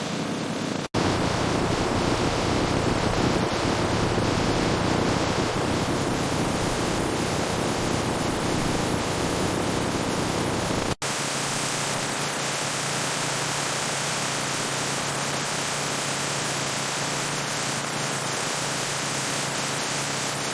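Steady, dense machinery noise, cut off abruptly about a second in and again about eleven seconds in. The last stretch carries a steady low hum.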